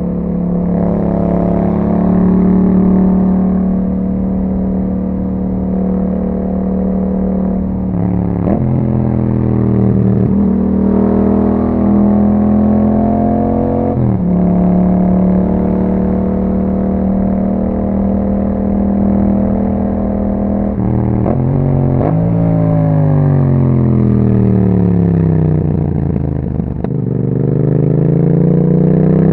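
2021 Yamaha MT-07's 689 cc parallel-twin engine running through an Akrapovic aftermarket exhaust while riding. It holds steady revs with brief breaks in pitch at gear changes. Then the revs fall for several seconds as the bike slows, and rise again near the end as it accelerates.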